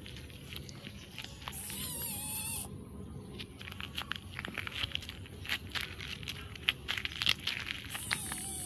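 Kitten meowing twice: a long, wavering meow about two seconds in and a shorter one near the end, over light, irregular crunching of footsteps on gravel.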